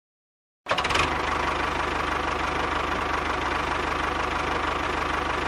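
A small motor-driven machine running steadily with a rapid, even chugging pulse, cutting in suddenly less than a second in.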